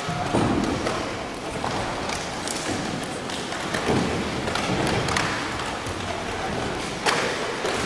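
A hall full of karateka sparring lightly in pairs: scattered, irregular thuds and taps of open-hand strikes on gi and bodies, with shuffling feet, in a large reverberant sports hall. A sharper knock comes near the end.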